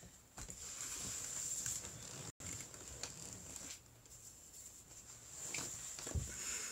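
Rustling and handling noise close to the microphone as a person shifts and reaches for things, with a soft thump near the end. The audio cuts out for a split second about two and a half seconds in.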